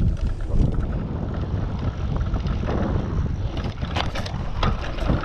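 Mountain bike rolling fast over a dirt trail, with wind rumbling on the action camera's microphone and the bike clattering over bumps, the knocks coming more often in the last couple of seconds.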